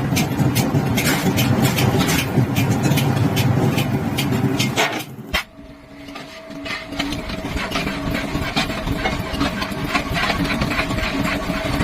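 Metalworking machinery running with a steady hum and frequent sharp clicks and knocks. About five seconds in the sound cuts abruptly to a quieter machine hum with a held tone, still with clicks.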